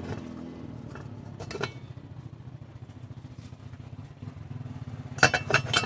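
A few sharp metal clinks and knocks near the end as a Garuda crankshaft is set into an aluminium motorcycle crankcase half to check its clearance. Under them runs a steady low engine hum with a fast even pulse.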